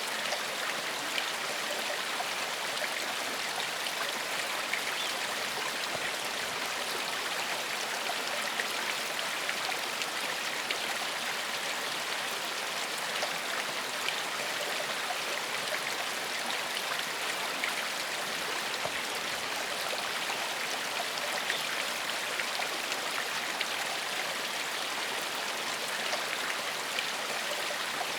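Shallow forest stream flowing over stones: a steady rush of water with many small splashes and burbles.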